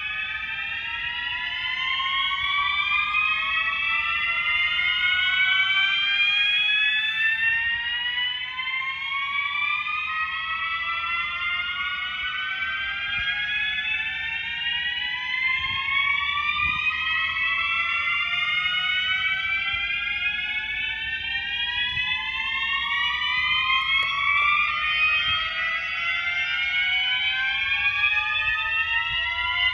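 Non-ADA System Sensor MASS fire alarm horn strobes sounding the slow whoop tone in a bell test: repeated slow rising sweeps in pitch. Several horns run out of step, so their whoops overlap.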